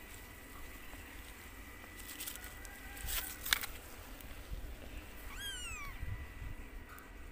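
White Persian kitten meowing once, a single high call that rises then falls, about two thirds of the way through. A few short rustling clicks come a little before it.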